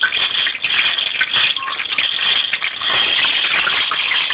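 Garlic cloves flash-frying in hot oil in a stainless steel pot on high heat: a steady, dense sizzle and crackle.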